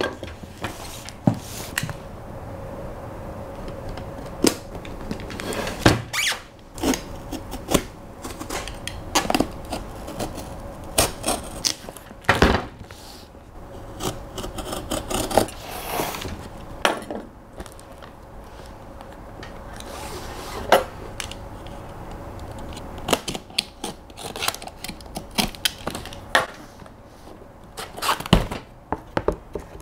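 A taped cardboard shipping box being cut open with a utility knife: the blade scrapes and slices through packing tape and cardboard, and pieces of the box are torn and pulled back, in irregular sharp clicks, scrapes and rustles.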